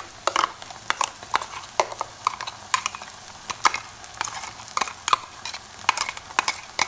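A steel spoon tapping and scraping against the rim and inside of a stainless-steel mixer-grinder jar as ground coconut paste is knocked out into a pan: a run of sharp metallic clicks, two or three a second.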